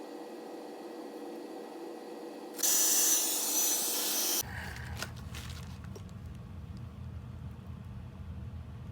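Aerosol spray can hissing in one loud burst of about two seconds, sped up, with a few clicks after it, typical of spraying lacquer during finishing.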